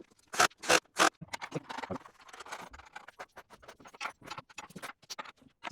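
Irregular clicks and light knocks of hand tools and metal parts being handled while an electric scooter's hub motor is put back together, a few sharper clicks early on and then quicker, softer ticking.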